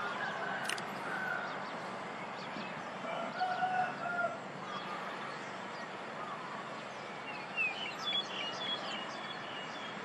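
Eurasian tree sparrow giving short chirps, in a cluster about eight seconds in, over steady background noise. A lower, drawn-out call from another bird about three seconds in is the loudest sound.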